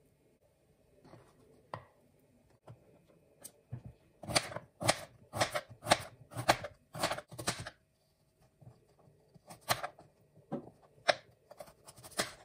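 Knife slicing through raw sweet potato onto a cutting board: a run of sharp chops about two a second for a few seconds, then a few single cuts spaced out near the end.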